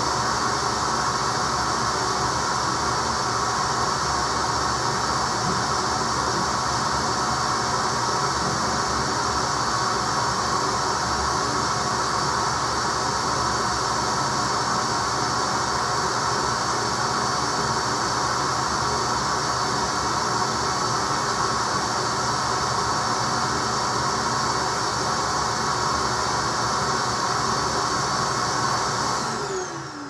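Vacuum cleaner running steadily with a high motor whine while vacuuming out a gas dryer's lint-filter slot. It is switched off near the end and its motor winds down in a falling whine.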